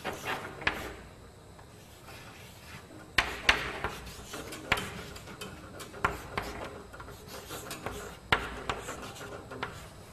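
Chalk scratching and tapping on a chalkboard as an equation is written, in short irregular strokes with brief pauses between them.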